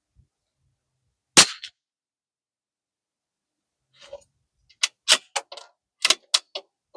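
A single shot from a CZ 457 .22 LR bolt-action rifle firing Aguila Rifle Match, about a second and a half in, sharp and brief. About three seconds later comes a quick run of eight or so metallic clicks, typical of the bolt being worked to eject the case and chamber the next round.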